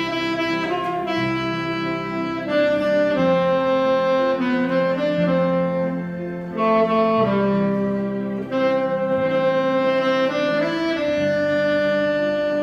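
Alto saxophone playing a slow melody of long held notes, phrased with short breaks between lines.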